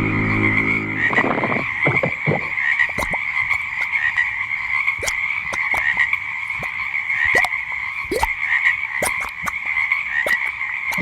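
Frog chorus ambience: many frogs croaking over a steady high trill, with scattered sharp clicks. A low droning tone fades out about a second in.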